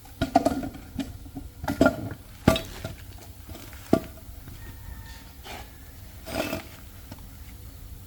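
Metal tools and parts being handled, giving a few sharp clinks and knocks with a brief metallic ring, at irregular intervals.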